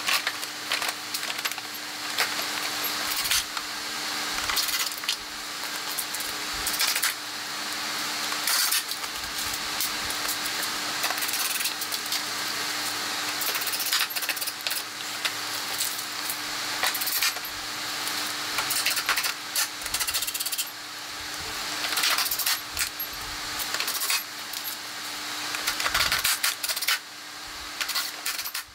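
Clicks, knocks and metallic clinks of plastic body panels and small metal fasteners being handled while a kids' buggy's front body shell is fitted back on, scattered irregularly over a steady faint hum.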